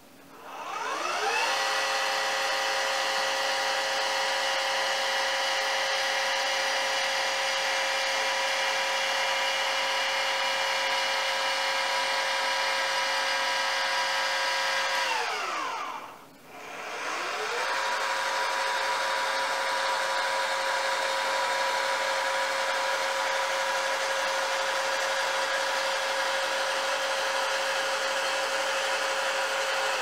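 Celestron Evolution 8 telescope mount's slew motor running at speed 9: a steady geared whine rises in pitch as it spins up about a second in and holds. It winds down around halfway, then spins up again and holds until near the end. The owner suspects this noise level may not be normal for the mount.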